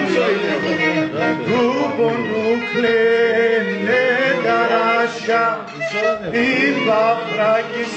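A Pontic lyra (kemenche) played with a bow, with a man singing along in a wavering, ornamented voice.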